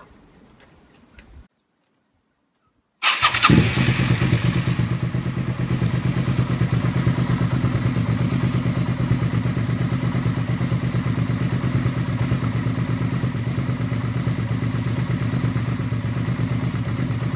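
Suzuki SV650's V-twin engine idling steadily while its carburettors are balanced on vacuum gauges. After a brief silence it comes in suddenly about three seconds in.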